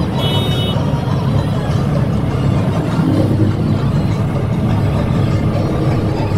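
John Deere combine harvester running under load while cutting wheat, heard from inside its cab as a steady low engine and machinery drone. A brief high tone sounds within the first second.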